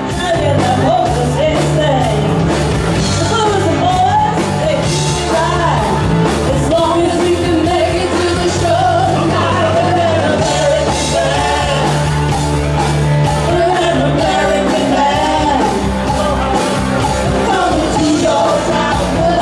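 Live rock band playing a song: women's voices sing over electric guitar, bass guitar and drums, heard through the room's PA.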